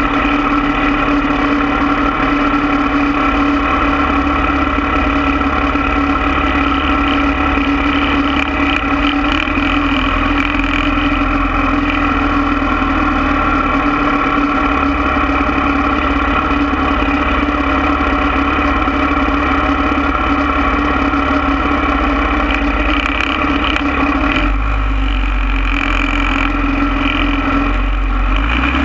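Harley-Davidson 45 cubic-inch flathead V-twin idling steadily, heard close up from a camera mounted on the motorcycle.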